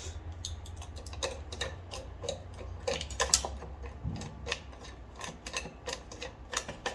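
Irregular metallic clicks and light taps, about two or three a second, from hand tools working bolts loose on the mower engine's cover, over a faint low hum.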